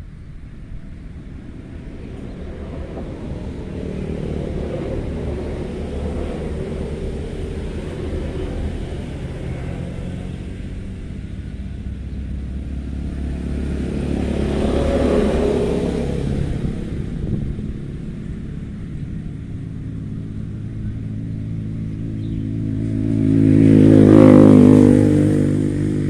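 Motor vehicles passing in a steady low rumble. One swells past about fifteen seconds in, and a louder one with a clear engine note passes near the end.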